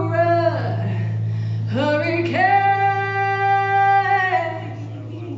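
Music: a woman singing, one phrase ending about half a second in, then one long held note starting about two seconds in and fading, over a steady low sustained note.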